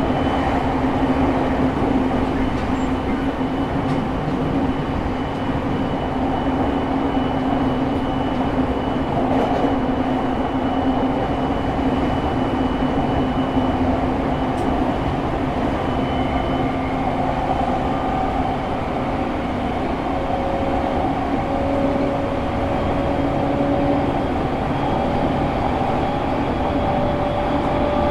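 Running noise of a JR East E217 series motor car (Mitsubishi GTO-VVVF control, MT73 traction motors), heard from on board: a steady rumble with a low hum. In the second half a fainter motor tone slowly rises in pitch.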